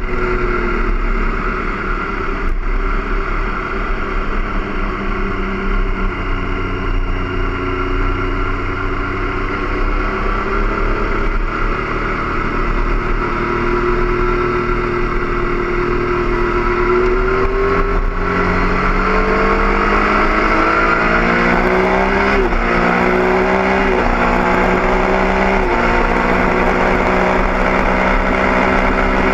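Stock-exhausted Triumph Daytona 675 inline three-cylinder engine heard from onboard at track speed. It holds a fairly steady note at first, then pulls hard through the gears, its pitch climbing and dropping back at three quick upshifts in the last third.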